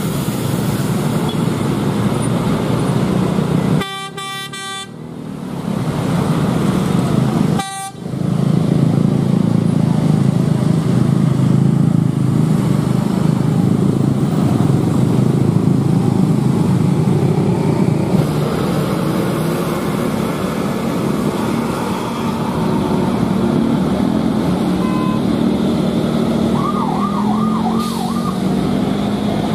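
Slow, heavy traffic on a climb: bus and motorcycle engines running in a steady low rumble. A horn sounds for about a second around four seconds in and gives a short blast again near eight seconds. A short warbling tone is heard near the end.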